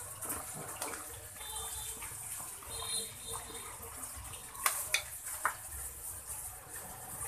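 A hand stirring and crumbling a dry, powdery fishing-bait mix in a plastic basin, giving a soft, gritty rustle and hiss. A few sharp clacks come a little past halfway.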